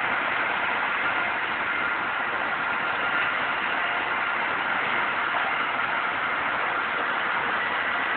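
Steady hum and hiss of a Trenitalia train standing at the platform with its equipment running, faint steady tones over an even rushing noise.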